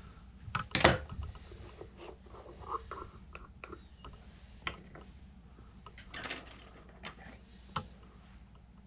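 Scattered small clicks, taps and scrapes of tools being handled at an engraving bench as the ink and brush are readied. There is a sharp knock about a second in and a cluster of clicks about six seconds in.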